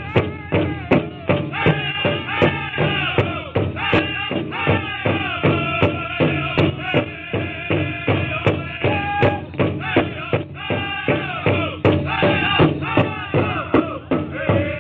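Pow wow drum group: several drummers striking one large drum in a steady beat, a little over two beats a second, while singing a song together.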